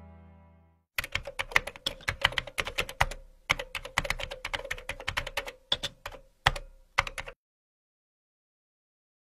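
Computer keyboard typing: a quick, uneven run of key clicks starting about a second in, with a short break partway through, stopping a couple of seconds before the end.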